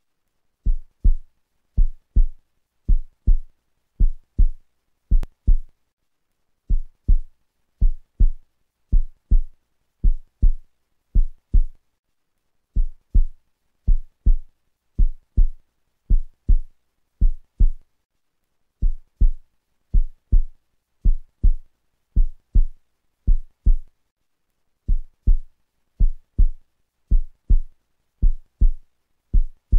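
Low double thumps in a heartbeat rhythm, about one pair a second, coming in runs of five pairs with a short break between runs.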